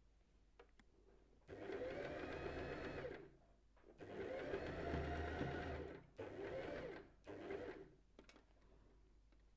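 Domestic electric sewing machine stitching a zigzag seam to attach elastic to a fabric edge, run in four short bursts: two longer ones, then two brief ones near the end. Each time the motor's whine rises as it speeds up and drops as it stops.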